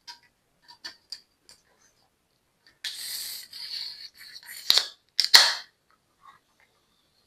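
Close-miked mukbang eating sounds from a pastry: light clicks, a rustle lasting about two seconds, then two sharp crunches about half a second apart, the second the loudest.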